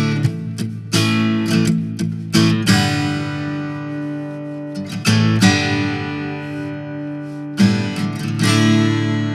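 Enya EF200 solid-top acoustic-electric guitar strummed in chords, played plugged in through its Fishman Presys Blend pickup. Several quick strums over the first few seconds, then chords left to ring out, struck again twice.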